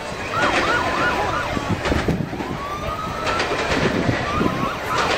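Emergency-vehicle siren: runs of a fast yelping warble, with a slower rising wail in the middle, over the chatter of a crowd.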